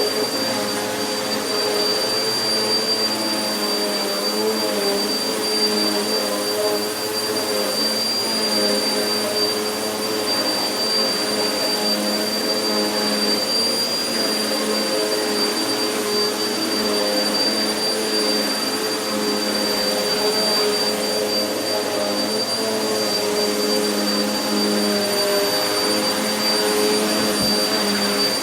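Vacuum cleaner running steadily over carpet that has been sprinkled with carpet powder, with a constant high-pitched whine over the motor's hum.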